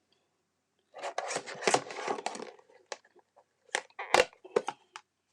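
Paper and cardstock rustling as craft pieces are handled, followed by several sharp taps and one low thump of pieces set down on a table.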